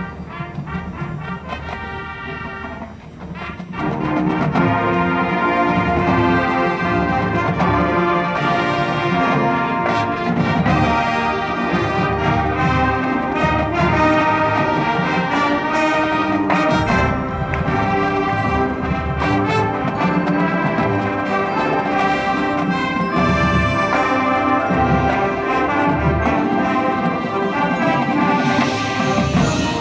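Marching band playing: a softer passage, then about four seconds in the full brass section comes in loud with sustained chords over drum and percussion hits.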